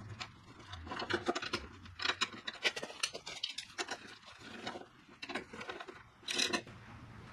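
Hand tools and metal motorcycle parts being handled during a front fork installation: irregular clicks, light knocks and scrapes, with a louder scrape about six seconds in.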